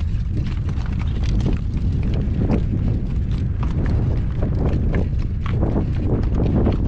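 Newly shod horse walking, its hooves clip-clopping in an uneven beat of several strikes a second, over a heavy low rumble of wind on the microphone.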